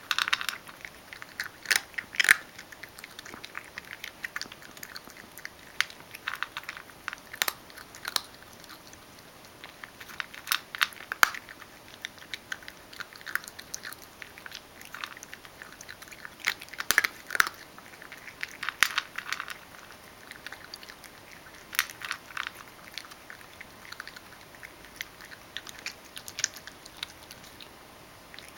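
Ragdoll cat chewing dry kibble, crunching it in irregular sharp crunches that sometimes come in quick clusters.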